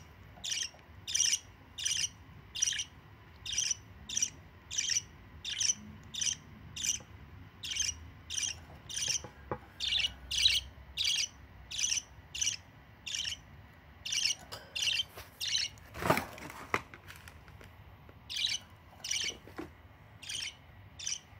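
Budgerigar chick begging for food with short, high chirps repeated rhythmically, about two or three a second, while an adult budgie feeds it beak-to-beak by regurgitation. A single louder sharp sound comes about sixteen seconds in, and the chirping pauses briefly soon after.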